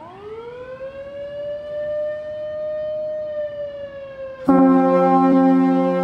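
A Federal Signal Selectone warning siren winds up into its wail, rising in pitch and then holding steady. About four and a half seconds in, the fire station's 1940s Clark Cooper air horns, retired ship and fog horns, cut in suddenly with a much louder, steady chord of several notes. This is a fire-call alert, the siren warning of the horn blast that follows it.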